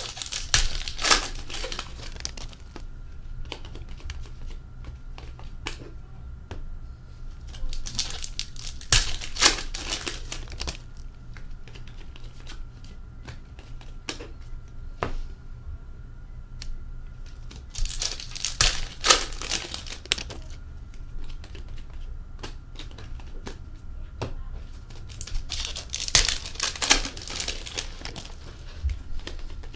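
Hockey card pack wrappers being torn open and crinkled: four bouts of crackling about eight to nine seconds apart, with small clicks of cards being handled in between.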